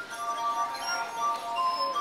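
Music with ringing, glassy bell-like tones that hold and step from note to note.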